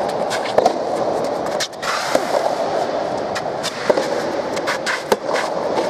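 Soft tennis rally: sharp, irregular knocks of rackets striking the rubber ball and the ball bouncing, over a steady crowd din.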